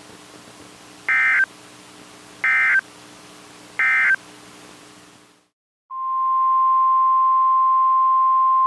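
Emergency Alert System end-of-message signal: three short identical bursts of raspy SAME data tones, about 1.3 seconds apart, marking the end of the special marine warning. After a brief gap, NOAA Weather Radio's steady 1050 Hz warning alarm tone comes on about six seconds in and holds, announcing the next warning.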